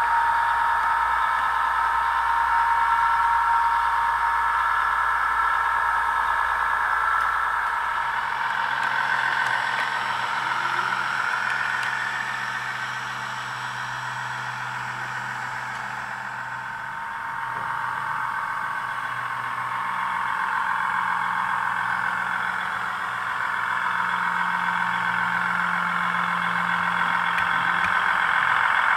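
Digital diesel engine sound of a Class 158 diesel multiple unit, played by a Zimo MX645P22 sound decoder through the small factory-fitted speaker of a Bachmann model as it runs. The note is thin and mid-pitched, shifts in pitch about a third of the way in, dips in the middle, and grows louder near the end.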